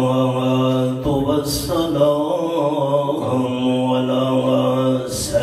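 A man's voice chanting in long, held notes, drawing a quick breath about a second and a half in and again near the end.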